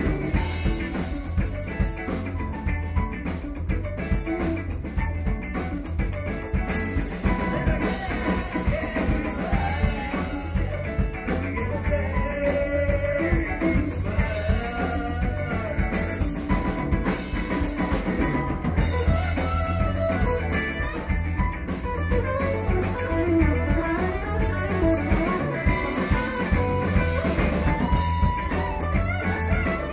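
Rock music with guitar and a drum kit playing.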